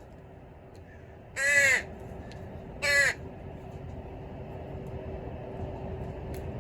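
A crow cawing twice: a longer caw about a second and a half in, then a shorter one about a second later.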